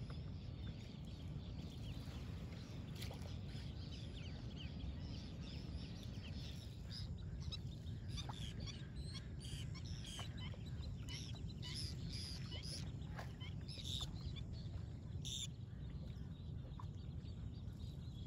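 A flock of birds calling: many short, high chirping calls overlapping, thickest through the middle, over a steady low background noise.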